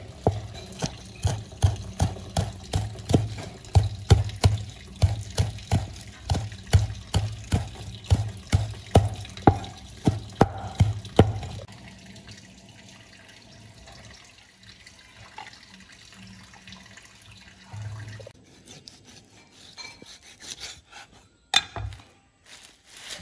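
Cleaver chopping a bunch of green stalks on a wooden chopping block, a steady run of knocking chops about two to three a second. The chopping stops about twelve seconds in, followed by a few scattered knocks.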